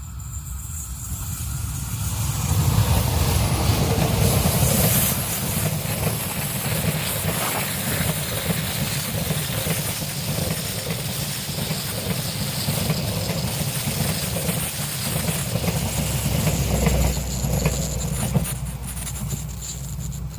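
Diesel-electric locomotive hauling a passenger train past at close range, its engine working under load on a climb, with wheel and rail noise. The sound builds about two seconds in and stays loud.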